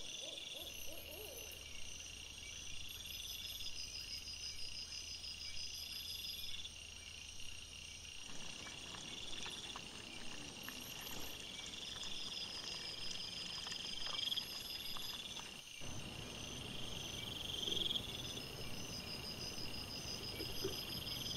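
Night insects chirping in steady, repeated pulsed trills, with faint scattered clicks and rustles from wild boar rooting and feeding close by.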